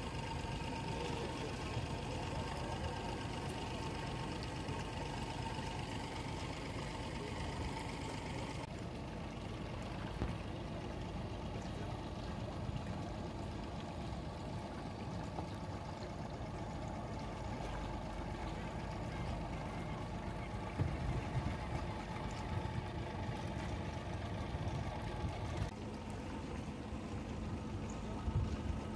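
Motorboat engine running steadily as the boat cruises, a continuous hum with a few steady tones.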